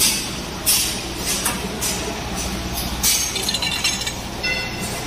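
Metal bus bars clinking on the roller conveyor of a bus bar heat shrink tunnel machine: several sharp clinks over the machine's steady low hum. Near the end one clink rings on with a clear metallic tone.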